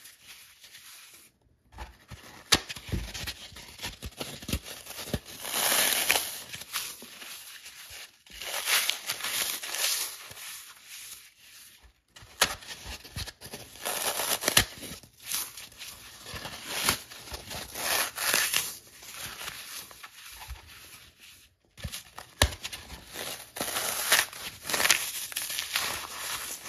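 Dry, sun-baked green floral foam being crushed and crumbled between the fingers: gritty crunching and crackling in bursts with sharp little snaps, broken by a few brief pauses.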